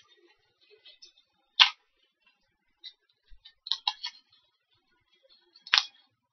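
Blind-box miniature packaging being handled and opened: scattered sharp clicks and crackles, the loudest about a second and a half in and again near the end, with a quick run of clicks in the middle.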